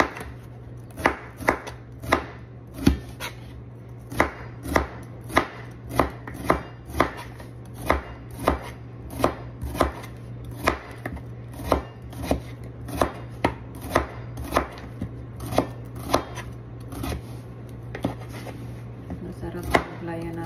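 Kitchen knife slicing bitter melon (ampalaya) on a cutting board: a steady run of sharp taps, about two a second, as each thin slice is cut through onto the board.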